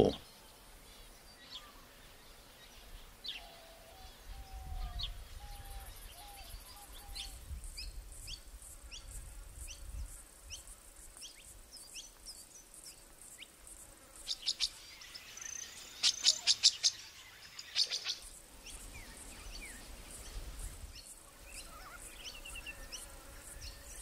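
Field ambience of wild birds and insects: small birds give short, repeated falling chirps, and an insect keeps up a fast, high ticking through most of the stretch. A brief cluster of louder, sharp chirps comes a little past the middle.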